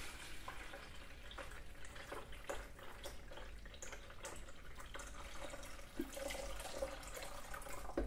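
Water being poured from a glass carafe into the reservoir of an electric drip coffee maker: a faint, steady trickle with a few small ticks.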